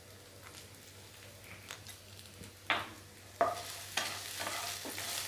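A wooden spatula stirring elephant foot yam sticks in a frying pan, with a light sizzle of frying in oil. It is faint at first; about three seconds in, the stirring begins with a few knocks and scrapes of the spatula on the pan, and the sizzle grows steadier.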